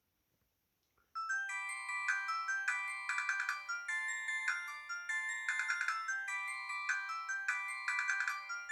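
Polyphonic ringtone played through the Alcatel VM202 mobile phone's built-in speaker, starting about a second in. A short melody of bright notes repeats over and over at a steady level. The sound is thin, with no bass.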